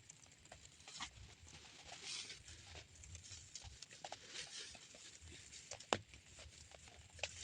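Light drizzle pattering, with scattered drops ticking irregularly and one sharper tick about six seconds in, over a low rumble that comes and goes.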